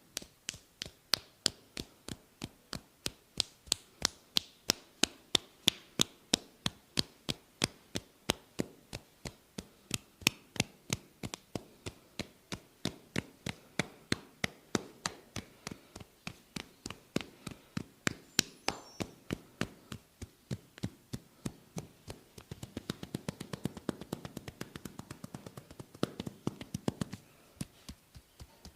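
Rhythmic massage tapping: sharp, crisp taps at about three a second, turning faster and busier for a few seconds near the end.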